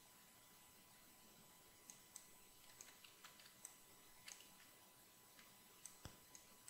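Near silence with about ten faint, scattered clicks of a computer mouse and keyboard, starting about two seconds in.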